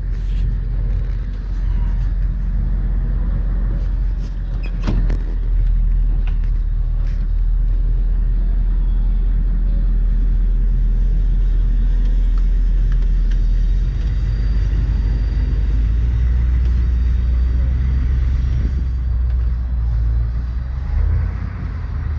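Steady low rumble of a car in motion, with a few faint clicks.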